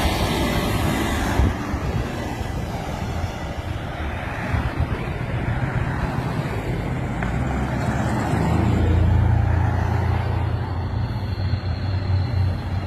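Fire apparatus engine running with a steady low hum, growing louder about eight and a half seconds in. A broad hiss at the start stops about a second and a half in.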